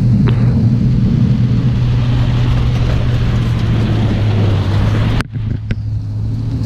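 Truck engine running steadily while driving through floodwater, with a steady rushing noise over the engine hum. The sound cuts out briefly about five seconds in, then resumes.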